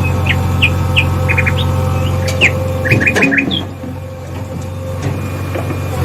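Small birds chirping in short, quick calls over a steady low motor-like hum; the hum drops in level a little past halfway and the chirps stop.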